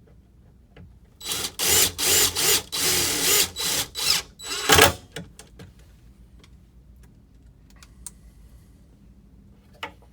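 Power drill running in a series of short bursts, its motor pitch rising and falling with the trigger, as it drives screws into wood to fasten a lock plate. A small sharp click near the end.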